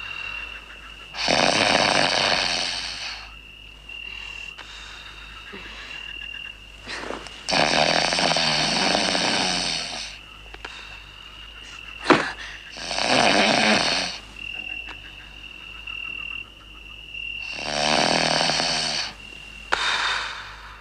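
A man snoring heavily: four long snores spaced about five seconds apart, with a sharp click about twelve seconds in.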